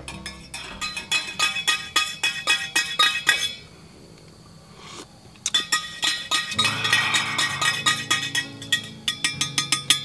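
A small spoon stirring coffee in a cup, clinking rapidly against the sides. It comes in two runs with a short pause in between.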